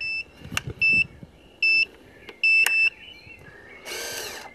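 Radio-control transmitter beeping: four short high-pitched beeps, the last one longer, with a couple of sharp switch clicks among them. A brief burst of noise near the end.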